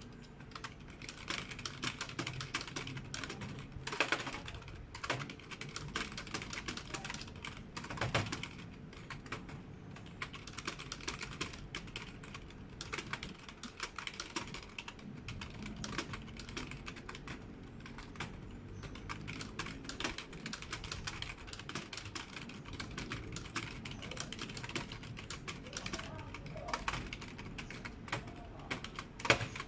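Typing on a computer keyboard: rapid, continuous keystrokes with a few louder key strikes now and then.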